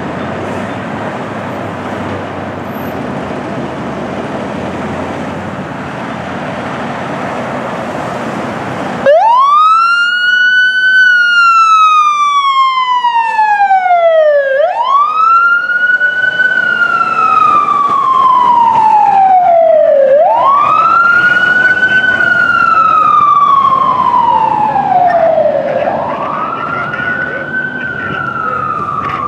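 Fire engine leaving on a call: a steady rumble of the apparatus for about the first nine seconds. Then its siren starts suddenly in a wail, each cycle rising quickly and falling slowly, repeating about every five and a half seconds.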